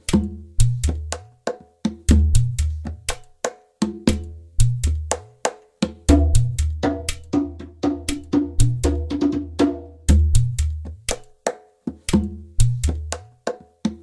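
Background music with a percussive beat: sharp wood-block-like clicks in a quick, even rhythm over repeating low bass notes.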